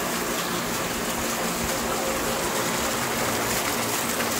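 Steady heavy rain falling on wet paving and garden plants; near the end, rainwater pours from a downpipe and splashes into a bucket.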